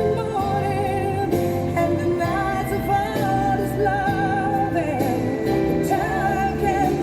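Background music with a singing voice holding long notes with a wavering vibrato over a sustained backing.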